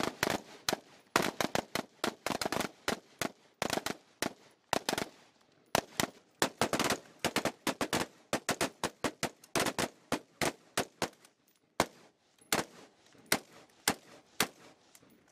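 Rifle fire from a line of shooters: many sharp shots in quick, irregular succession, often overlapping, with a few short lulls and fewer shots near the end.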